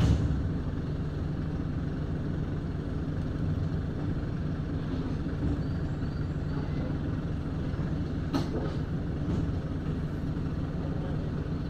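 An engine running steadily at a constant low rumble nearby, with one sharp click about eight seconds in.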